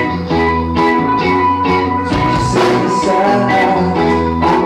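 Live rock band playing: electric guitars and bass guitar over drums, with a lead singer.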